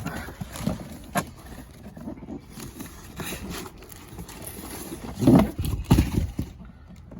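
Knocks, thumps and rubbing from a boxed RC car being handled and set down, with two loud thuds about five and six seconds in.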